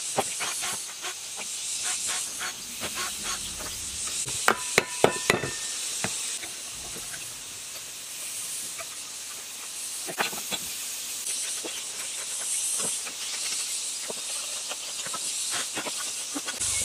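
Metal clicks and clinks of hand tools and parts on the cast-aluminium housing of a self-priming water pump being taken apart, over a steady hiss. A cluster of sharp, briefly ringing clinks comes about four and a half to five and a half seconds in.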